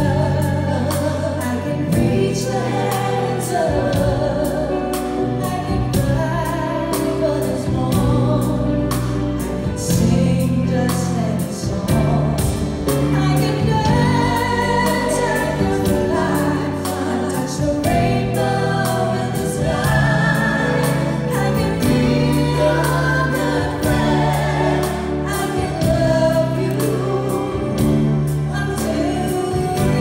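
A woman singing live into a handheld microphone, holding notes with vibrato, over amplified musical accompaniment.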